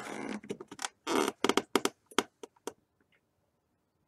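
A hand working a computer mouse on a desk close to the microphone: two short scraping rubs, then a quick run of about seven sharp clicks.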